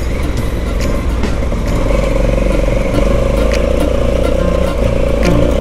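Honda CRF1100L Africa Twin's parallel-twin engine running steadily while the bike rides a loose gravel track, getting a little louder about two seconds in, with scattered clicks of stones and knocks from the chassis.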